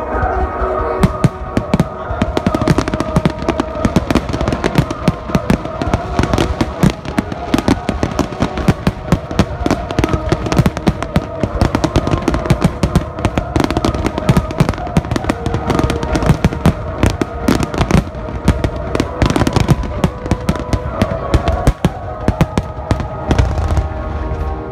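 Fireworks display firing a rapid barrage of shells: a dense, continuous run of bangs and crackles from many bursts at once. It plays over steady background music.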